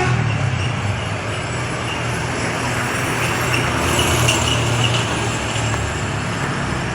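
Large bus's diesel engine running with a steady low hum under road and street noise, the telolet horn now silent.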